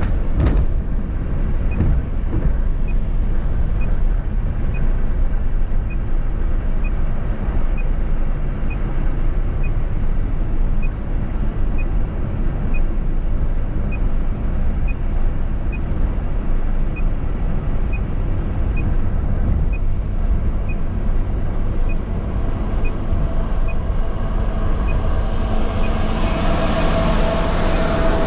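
Steady road and engine noise of a vehicle driving on a highway, with a faint tick about twice a second. Near the end a louder, steady-pitched engine drone builds up as a heavier vehicle comes close.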